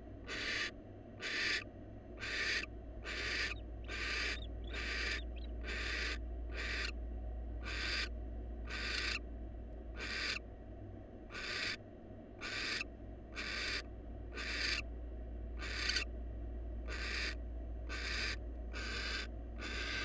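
Barn owl giving a long run of rhythmic hissing 'snore' calls, each a short harsh hiss, about one and a half a second. It is the barn owl's food-begging call.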